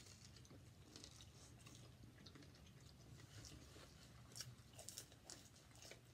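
Faint chewing and crunching of fried egg rolls: scattered soft crackles, a few slightly louder ones a little over four seconds in, over a low steady hum.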